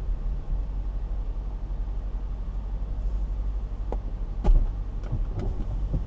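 Car idling with a steady low rumble. A few short clicks come from about four seconds in, with one sharp knock, the loudest sound, at about four and a half seconds.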